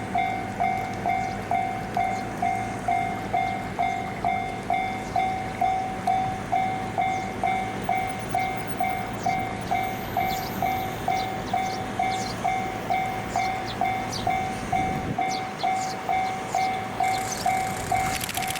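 Japanese level-crossing warning bell ringing: one repeated tone struck evenly a little over twice a second, signalling an approaching train. Near the end a hiss of noise rises.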